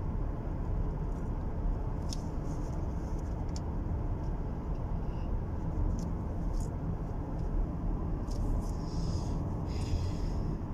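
Steady road and engine noise inside the cabin of a 2017 Lexus cruising on a highway, with a few faint clicks.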